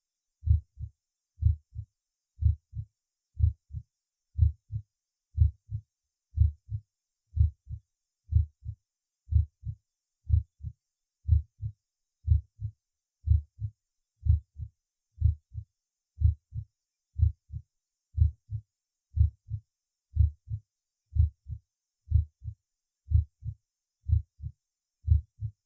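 Normal heart sounds heard at the cardiac apex (mitral area): a steady lub-dub, about one beat a second. The first sound (S1, closure of the mitral and tricuspid valves at the start of systole) is louder than the second (S2), as is normal at the apex.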